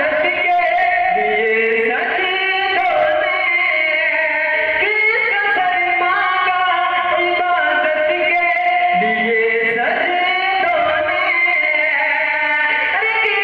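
A man singing a naat, an Urdu devotional song in praise of the Prophet, into a microphone, with long held notes that glide and curl between pitches.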